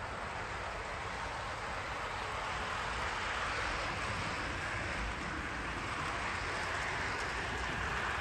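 HO-scale model diesel locomotive and hopper cars running along the track: a steady rushing noise of motor and wheels on rail that grows a little louder.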